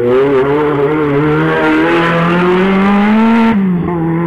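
Rally car engine accelerating hard, its revs climbing steadily, then dropping abruptly about three and a half seconds in and holding steady.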